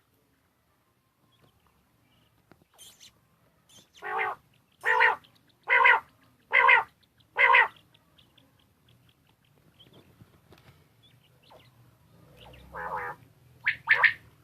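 Caged quail calling: a run of five loud, short calls just under a second apart, then a few more calls near the end.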